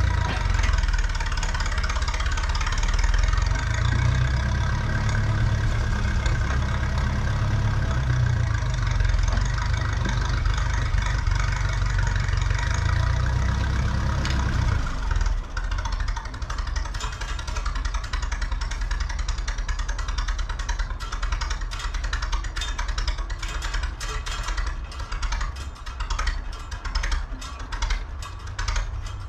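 Ferguson T20 tractor engine running, then dropping to a lower, quieter run about halfway through; after the drop a steady scatter of sharp clicks is heard over it.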